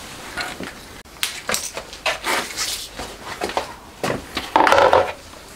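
Handling clatter on a workbench: a series of short knocks as parts are moved and an electric takoyaki hot plate is set down, with the loudest knock and rattle about four and a half seconds in.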